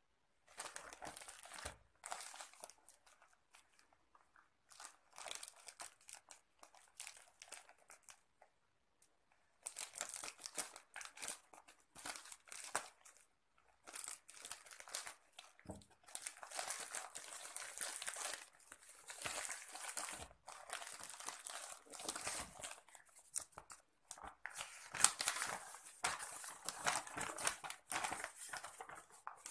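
Plastic courier mailer bag crinkling and tearing as it is handled and torn open, in irregular bursts with short pauses, busier and louder in the second half. Near the end, paper rustles as the sheets inside are pulled out.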